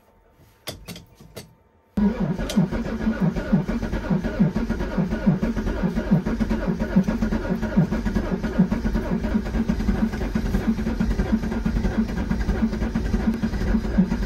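Cold diesel van engine being cranked on the starter motor: after a few faint clicks, the starter kicks in about two seconds in and turns the engine over in an even rhythm of two to three beats a second for some twelve seconds, without the engine catching. The owner suspects a weak battery or a dead glow plug in the cold.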